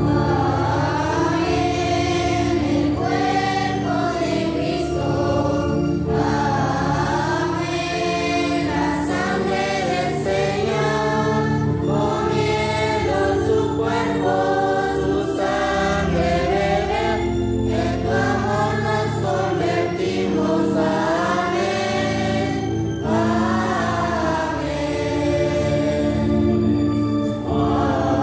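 Children's choir singing together into microphones, with a steady instrumental accompaniment held underneath the voices.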